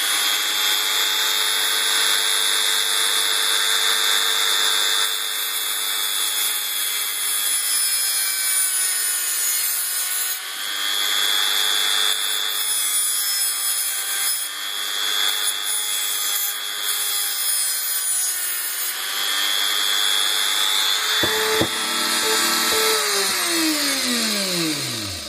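Fairline handheld rotary tool (Dremel-type engraver) with a thin abrasive cut-off disc, whining at speed while it grinds through the metal body of a micro-USB charging connector on a tablet circuit board, with a harsh grinding hiss. The whine dips and wavers as the disc bites. Near the end the tool is switched off and spins down with a falling whine.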